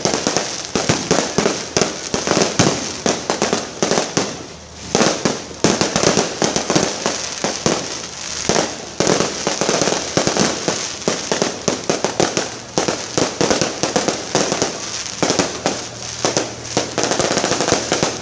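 Fireworks going off in rapid succession: a dense string of sharp cracks and pops, with a short lull about four seconds in.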